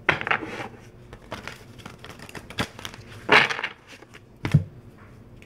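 A tarot deck being handled and shuffled: irregular rustling of cards with a few sharp taps, the loudest rustle about three and a half seconds in.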